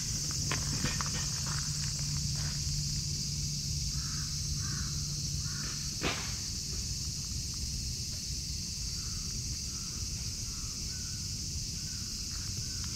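A crow cawing in two short series of faint, evenly spaced caws, over a steady high hiss. A few light clicks near the start and a sharp knock about six seconds in.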